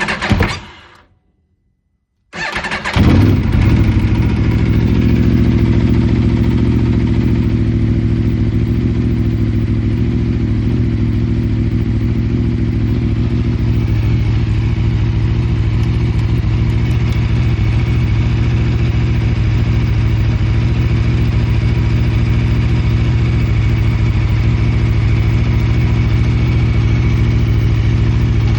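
Aprilia RSV4 RF's V4 engine: a short first burst that dies away within a second, then after a brief pause it catches about two seconds in and idles steadily. A steady high tone runs over the idle, the strange engine noise that worries the owner.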